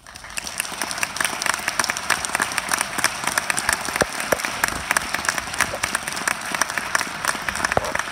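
Audience applauding, breaking out all at once and filling in within the first second, then steady dense clapping.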